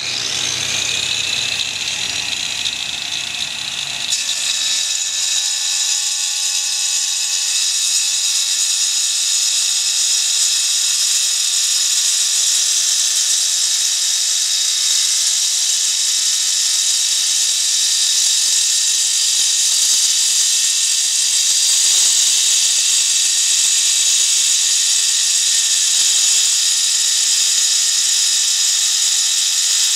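Angle grinder with a SHARK diamond rescue/utility blade running at full speed with a steady high whine, then cutting through ceramic tile from about four seconds in, the pitch holding steady with a grinding hiss over it.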